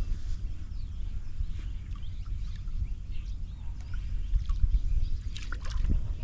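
Open-air ambience: a low, fluttering rumble, likely wind on the microphone, with faint scattered bird chirps and a brief cluster of sharper chirps about five and a half seconds in.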